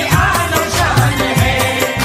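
Qawwali music: a steady, quick drum beat under a sustained melodic line.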